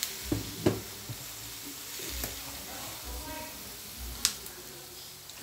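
Onion flowers and pork with oyster sauce sizzling steadily in a wok. A few sharp clicks and knocks sound over it, the loudest just under a second in and another about four seconds in.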